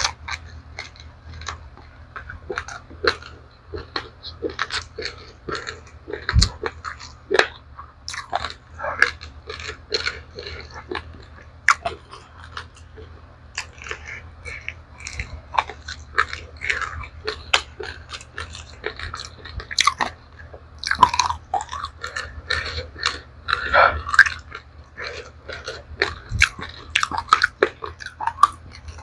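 Close-up crunching and chewing of dry-roasted raw rice grains: dense, irregular crackling crunches, with a low steady hum underneath.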